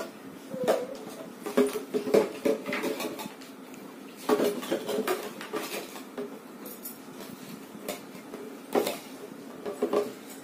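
Plastic toys clattering and knocking together as toddlers handle stacking rings and a plastic toy hammer: scattered light knocks and clicks at irregular moments.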